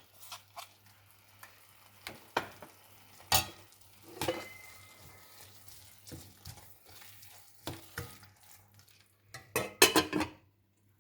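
Metal spoon clinking and scraping against a cooking pan as onions and mint are stirred into a frying masala paste, with faint sizzling underneath. The clinks come at irregular intervals, with a quick cluster of clatters near the end.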